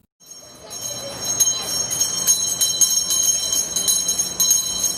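A metal bell rung rapidly and over and over, its high ring sustained between strikes, marking a child's end of cancer treatment. It starts a moment in.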